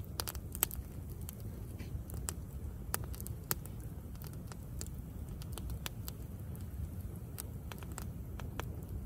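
Wood campfire crackling, with irregular sharp pops and snaps of burning wood over a steady low rumble.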